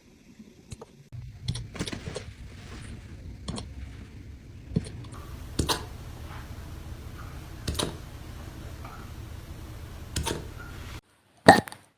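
A puppy hiccupping: short, sharp hics every second or two over a steady low hum, with one louder hic near the end after the hum drops out.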